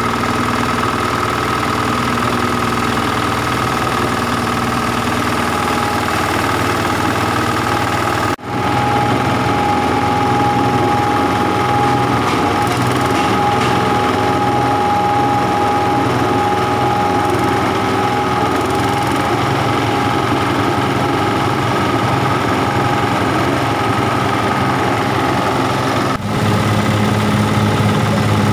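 Multipurpose grass chopper-grinder running steadily under load, grinding peanut shells into fine powder. A continuous machine hum with a steady tone, broken by two brief dips.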